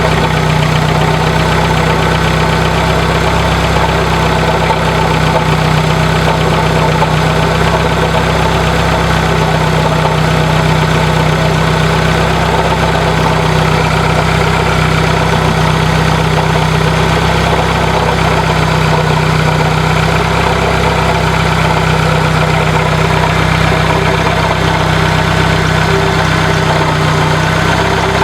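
1996 Dodge Neon's SOHC four-cylinder engine idling steadily, with a nasty grinding, scraping noise from the alternator: its bearings are worn out.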